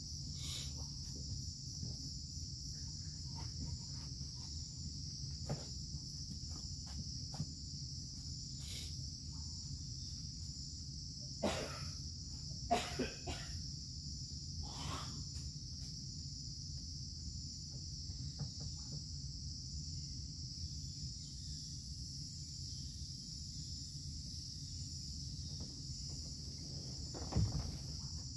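Steady, high-pitched insect chorus from the surrounding Amazon rainforest, droning without a break. A few short knocks and rustles come about halfway through and again near the end, as a person stirs and gets up from a bed.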